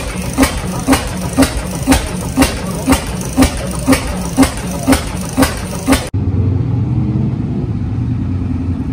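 Reid 15 HP single-cylinder two-stroke oil-field engine running, firing in a steady even beat about twice a second. About six seconds in it cuts off sharply, and a pickup truck's engine is heard running steadily as the truck drives slowly past.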